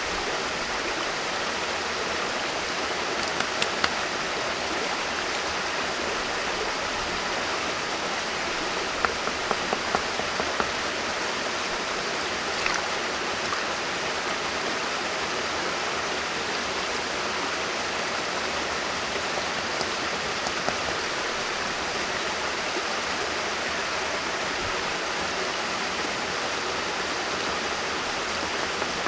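A shallow rocky stream running steadily, with a few small clusters of light clicks and taps as hands work clay and set stones on a mud-and-stone stove.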